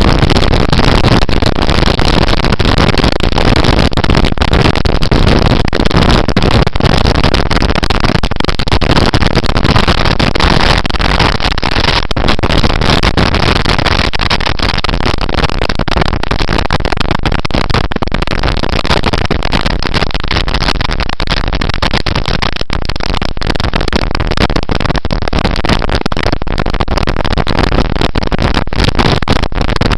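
Loud, steady wind rush and buffeting on a motorcycle-mounted camera's microphone while riding at speed, with the motorcycle's running and road noise mixed underneath and many small crackles through it.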